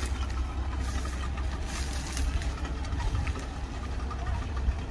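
An engine running steadily at idle, a low even rumble with a faint ticking above it.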